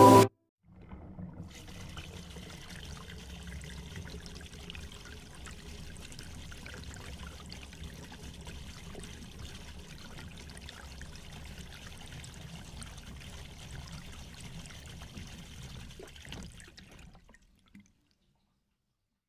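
Outdoor ambience at the edge of shallow lake water: wind rumbling on a phone microphone, with a light trickling hiss of water. It stops about 17 seconds in.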